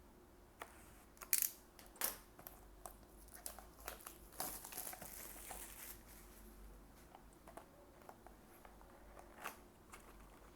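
A trading-card booster box being opened by hand: its wrapping and cardboard crinkling and tearing, with sharp clicks about a second in and a longer run of crinkling in the middle.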